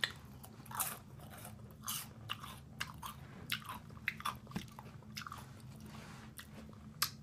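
A person biting and chewing crispy fried food, with irregular crunches a few times a second and a sharper crunch near the end.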